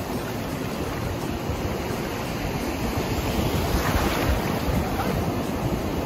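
Sea surf breaking and washing up the beach, swelling a little past halfway, with wind buffeting the microphone.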